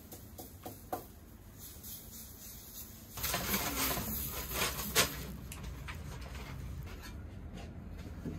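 Pancake batter being ladled onto a hot iron griddle. About three seconds in, a hiss of sizzling batter starts, with several sharp clicks and taps of the ladle on the metal; the sizzle then carries on steadily.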